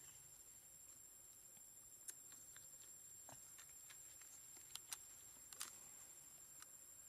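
Near silence: faint outdoor ambience with a steady high hiss-like tone and a few small scattered clicks.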